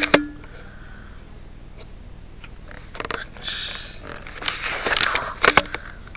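Handling noise from a handheld camera being moved about: a couple of clicks at the start, then near-quiet room tone, then scattered clicks, scrapes and rustles from about three seconds in.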